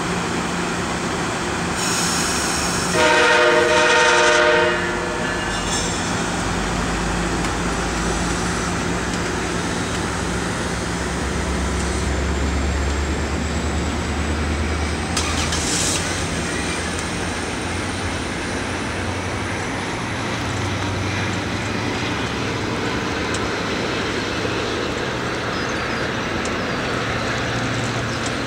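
MARC commuter train's horn sounds one chord-like blast about three seconds in, lasting nearly two seconds. Then the diesel locomotive rumbles as the train pulls out, with a short hiss about fifteen seconds in and a steady hum underneath.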